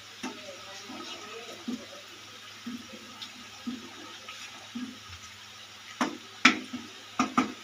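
Wooden spatula stirring a thin meat-and-kachalu curry gravy in a nonstick wok: soft sloshing of the liquid about once a second, then four sharp knocks of the spatula against the pan near the end.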